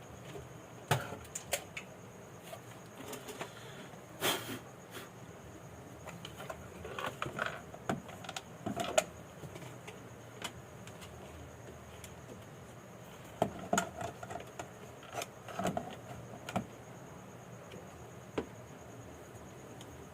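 Scattered light clicks and taps from handling a multimeter and its probes while checking for voltage on a motorcycle digital meter's circuit board. The taps come in small clusters, one louder knock about four seconds in.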